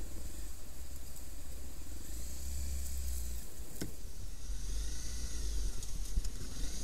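Motorcycle riding slowly along a snowy, muddy lane, heard mostly as a steady low rumble of engine and wind on the microphone, with one sharp click just under four seconds in.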